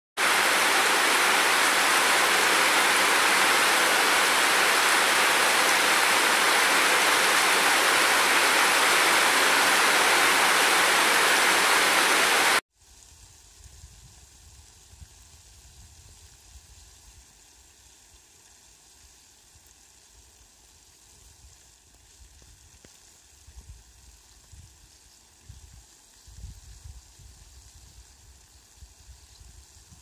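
Heavy rain pouring, a loud steady hiss, which cuts off suddenly about twelve seconds in. After that only a faint low rumble remains, with occasional soft bumps.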